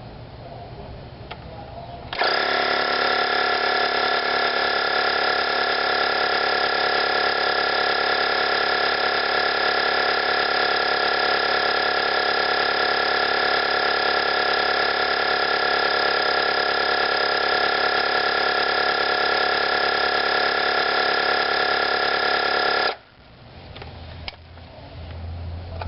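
Black & Decker ASI200 12 V mini air compressor starting about two seconds in, running steadily with an even motor-and-pump whine, then cutting off suddenly near the end.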